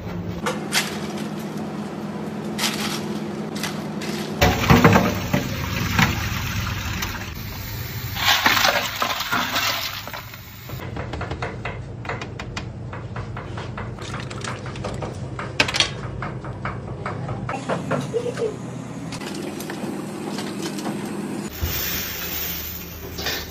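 Clinks, knocks and rustles from fish steaks and stainless-steel hotel pans being handled, in a string of short separate bursts. Near the end, coarse salt pours into a steel pan.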